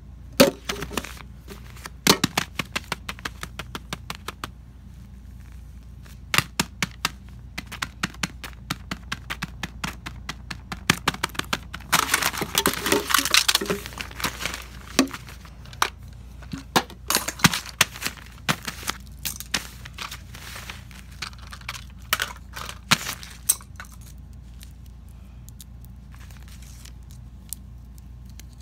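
Small plastic toys and paper being handled and set down on a hard surface: a long irregular string of sharp clicks and taps, with a burst of paper crinkling about twelve seconds in.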